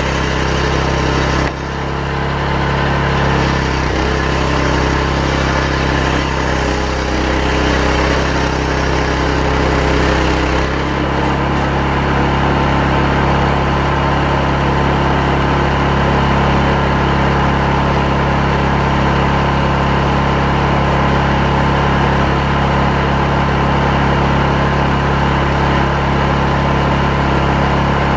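Chainsaw engine running steadily while ripping a hardwood log lengthwise into lumber. There is a brief dip in level about a second and a half in, and its note changes about eleven seconds in.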